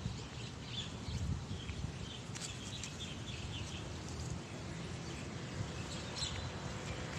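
Outdoor ambience: wind on the microphone with a steady low rumble, and faint short bird chirps now and then.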